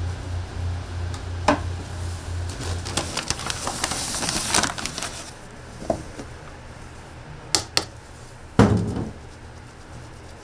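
Kitchen work sounds: a low pulsing machine hum that stops about three seconds in, a brief hiss, and several sharp knocks and clatters of utensils, the loudest a thump near the end.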